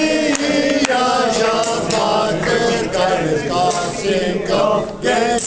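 Male voices singing a march together in a chant-like unison, with long held notes. A few sharp clicks come right at the start.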